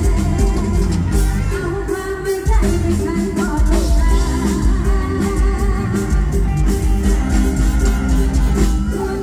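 Live Thai mor lam music: a singer over an amplified band with a steady, heavy bass beat.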